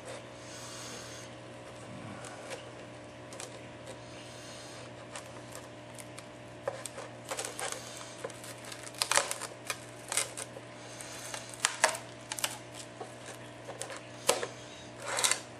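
Scattered clicks and scrapes of a pry tool working along the edge of an iPad 4's glass digitizer as it is separated from the frame, becoming more frequent and louder in the second half, over a faint steady hum.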